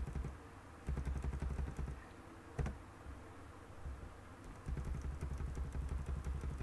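Computer keyboard keys pressed in two quick runs of rapid clicking, with one stronger single click between them about two and a half seconds in, as lines of code are deleted.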